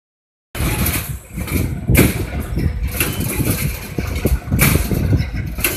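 Automatic wire mesh welding machine running: a steady low mechanical hum with a sharp clank roughly every second or so as the welding beam strokes down and the mesh is pulled forward. The sound starts about half a second in.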